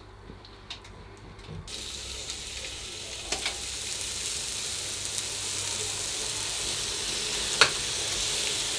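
Raw chicken breast fillets sizzling on the hot ribbed plate of an open electric contact grill. The sizzle comes in suddenly about two seconds in and holds steady, with a few sharp clicks, the loudest one near the end.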